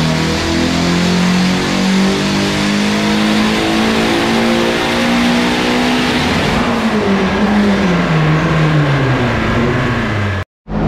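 Nissan SR20VET turbocharged four-cylinder on its stock turbo making a wide-open-throttle pull on a chassis dyno. The revs climb slowly for about six seconds, then fall steadily as it lifts off and the rollers spin down. The sound cuts off suddenly near the end.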